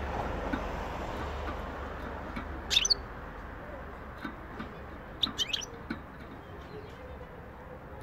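Small caged songbird chirping: one short call about three seconds in, then a quick run of three or four chirps about two seconds later.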